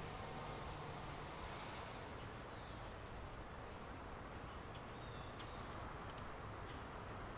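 Quiet outdoor ambience: a steady low hiss of background noise with a few faint, short bird chirps and a couple of small clicks.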